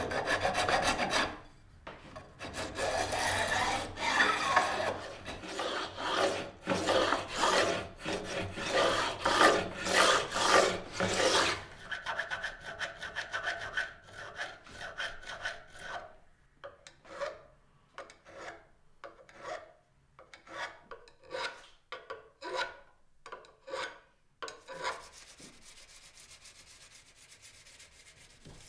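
Metal file stroked back and forth along the edge of a guitar fingerboard, bevelling the ends of the frets. The strokes come quick and loud for the first ten seconds or so, then slower and separate, about one and a half a second, and fade to faint rubbing near the end.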